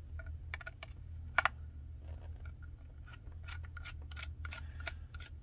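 Precision screwdriver working on screws in a small plastic electronics housing: a run of small, irregular clicks and ticks of metal on metal and plastic, with a louder double click about one and a half seconds in.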